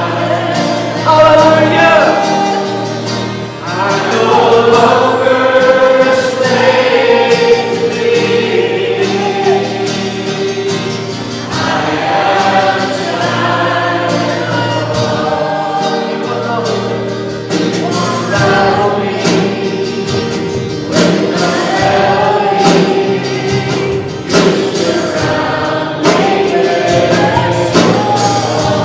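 Congregation or choir singing a gospel hymn with instrumental accompaniment.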